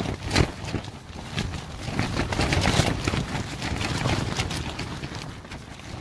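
Gale-force wind battering a small tent: the fabric flaps and snaps rapidly, over a low rumble of wind buffeting the microphone. A sharp crack comes just after the start, and the gusts build harder around the middle.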